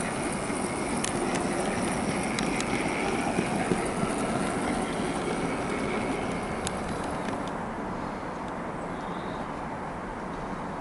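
Rapido Trains OO gauge LNER J70 tram model running at a slow speed on layout track: a steady motor and wheel running sound with a few sharp clicks. It grows fainter near the end as the loco moves away.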